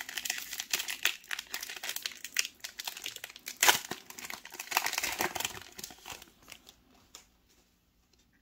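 Foil wrapper of a 2021 Prizm WNBA trading card pack being torn open and crinkled by hand, a dense run of crackles with one sharp loud crackle about three and a half seconds in. The crinkling dies away about seven seconds in as the cards come out.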